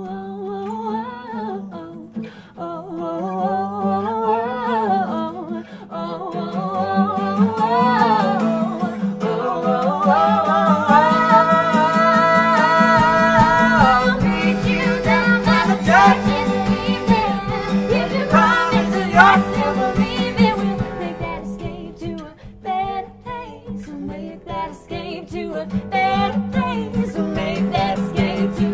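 Wordless vocal duet, a man and a woman singing a melody without lyrics over acoustic guitar and a small button accordion. About halfway through, the accompaniment grows fuller with a stronger low end.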